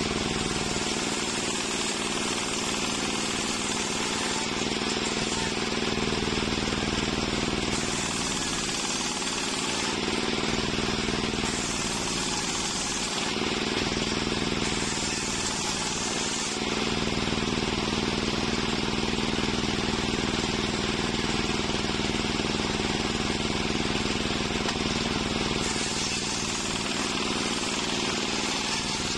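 Large sawmill circular saw running steadily with a constant machine drone while waru (sea hibiscus) timber is fed through it. The blade's rasp through the wood swells and eases every few seconds as the cuts go on.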